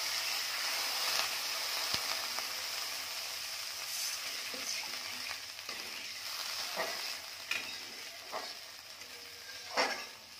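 Masala and oil sizzling in a metal kadhai just after about a cup of water has been poured in, the hiss slowly dying down. A flat metal spatula scrapes and stirs the pan several times, the loudest stroke near the end.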